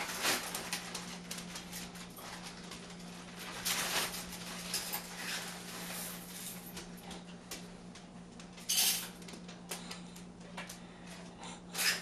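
Scattered light clicks, taps and short rustling noises over a steady low hum, with a few brief louder rustles.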